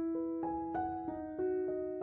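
Background piano music: a slow, gentle melody of sustained notes, a new note about every third of a second.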